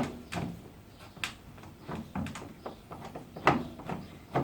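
Barbecue parts being handled and fitted during assembly: a series of irregular knocks and clicks, the loudest at the very start and about three and a half seconds in.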